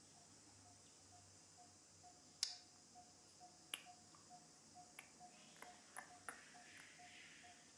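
Near silence with a steady faint hiss, a faint high peep repeating about two to three times a second, and several sharp clicks, the loudest about two and a half seconds in.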